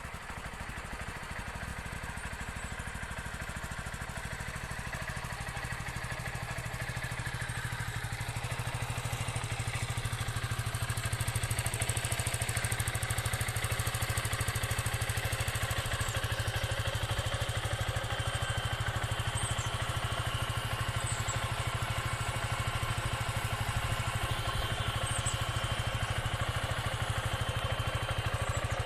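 Motron Revolver 125 cc motorcycle engine idling steadily, growing a little louder over the first ten seconds or so.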